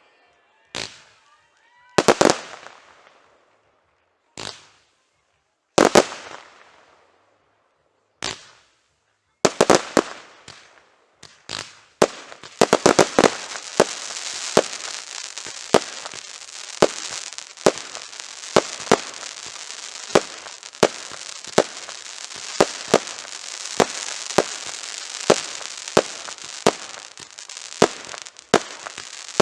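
Fireworks going off. Single shell bursts bang every second or two and fade away, then about twelve seconds in a dense crackling starts, with sharp bangs coming a little more than once a second.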